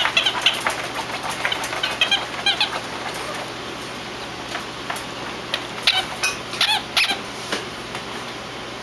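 A squeaky dog toy, trapped under a dog bed, squeaking in quick clusters of high chirps, first for about three seconds and again past the middle. Sharp scratches and rustles from the dog digging at the bed sound among the squeaks.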